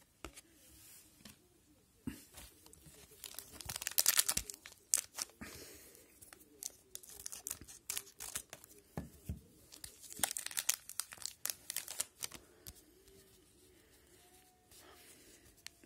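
A 2019/20 O-Pee-Chee hockey card pack wrapper being torn open and crinkled by hand, in two spells of crinkling about three seconds in and again about ten seconds in.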